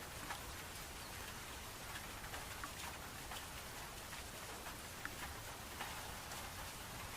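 Steady rain: an even hiss with many scattered individual drops ticking through it.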